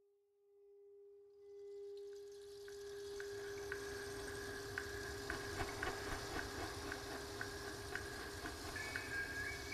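Meditation soundscape of a steady pure tone, like a tuning fork, fading in. Over the first few seconds it is joined by a soft wash of hiss and a higher ringing tone with light chime-like ticks. A higher whistle-like tone enters near the end.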